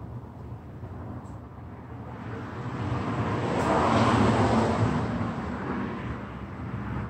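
A vehicle passing by outside. It swells to a peak about four seconds in and then fades away, over a steady low rumble.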